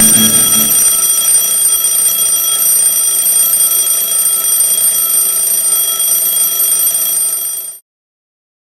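Wake-up alarm ringing loudly and steadily in a high pitch, then cutting off suddenly near the end.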